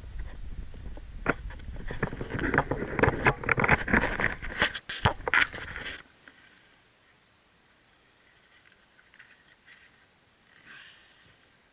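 Close rustling and scraping with many sharp clicks and a low rumble that cut off suddenly about six seconds in. After that it is quiet except for a faint crinkle of aluminium foil being laid over the grill near the end.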